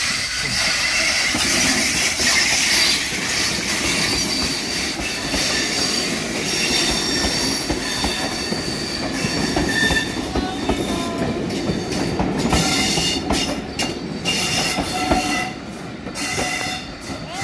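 Steam tank engine and its passenger coaches passing close by on the rails. The wheels squeal in thin high tones, and a run of clicks from the wheels crossing rail joints comes as the last coaches go by. The sound fades near the end as the train moves away.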